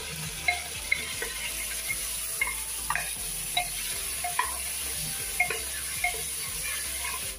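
Food sizzling as it fries in masala in an open aluminium pressure cooker, stirred with a long spatula that scrapes and knocks against the pot every second or so over a steady hiss.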